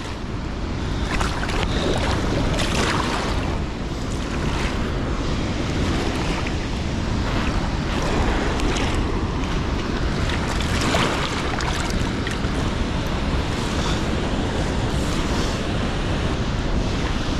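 Steady rush of a fast, high-running river, with wind on the microphone.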